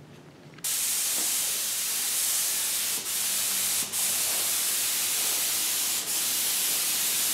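Gravity-feed HVLP spray gun spraying thinned paint: a steady hiss of air and atomised paint that starts about half a second in and breaks off briefly three times between passes.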